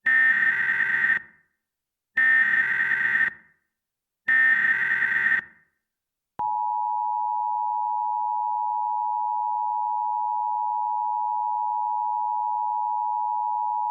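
Emergency Alert System SAME header: three bursts of harsh digital data noise, each about a second long and two seconds apart. Then, about six seconds in, the steady two-tone EAS attention signal begins and holds.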